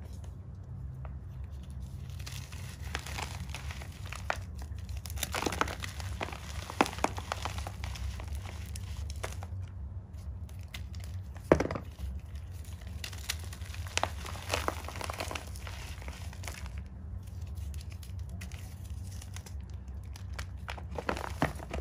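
Blocks of chalk crushed and crumbled by hand, giving an irregular run of crunching and crackling as they break into powder, with one sharp snap about halfway through.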